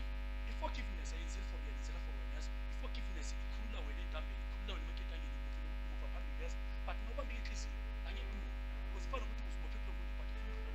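Steady low electrical mains hum, with faint, brief scattered sounds over it and a couple of small clicks.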